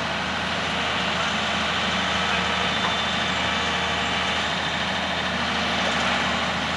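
Heavy diesel engine running steadily.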